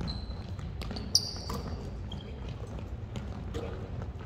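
Basketball bouncing on a hardwood gym floor as players dribble, a few irregular thuds with the sharpest about a second in. Short high squeaks of sneakers on the wooden court come in near the start and about a second in.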